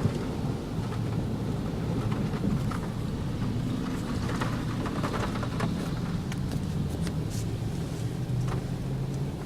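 Typhoon rain beating on a car, heard from inside the cabin: a steady low rumble from the car and the storm under a wash of rain, with scattered sharper drop hits.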